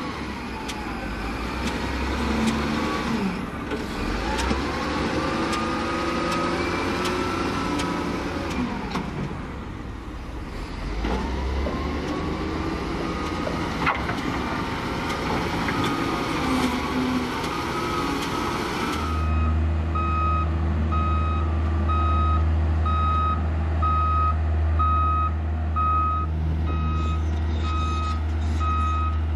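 Heavy earthmoving machine's engine working, its pitch rising and falling as it takes and sheds load. About two-thirds of the way in, the sound switches abruptly to a steady low engine drone with a reversing alarm beeping at an even pace.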